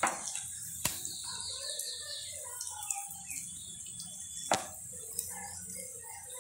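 Vegetable chops frying in hot oil in a pan, a steady high sizzle, with sharp knocks of a wooden spatula against the pan as the chops are turned: one at the start, one about a second in and one about four and a half seconds in.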